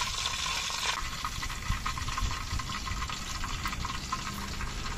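Whole quail deep-frying in hot oil in an aluminium kadai: steady sizzling hiss with many small crackling pops from the bubbling oil.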